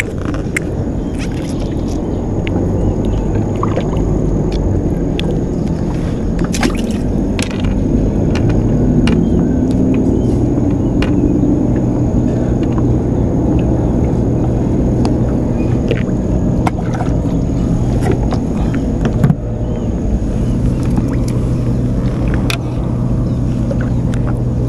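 A boat engine runs steadily at low, even revs, a continuous low hum. Small clicks and taps from handling fishing tackle are scattered over it.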